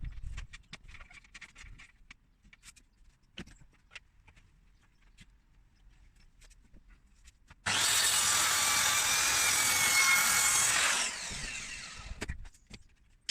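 Electric power saw cutting through timber for about three seconds, starting abruptly after a few light taps and clicks of handling, then the blade spinning down with a falling whine.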